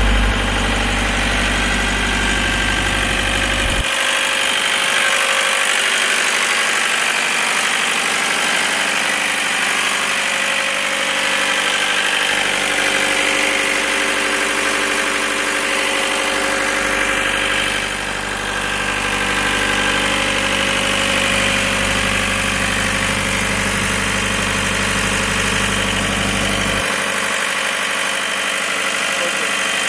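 John Deere diesel engine of an Atlas Copco XAS 185 towable air compressor idling steadily.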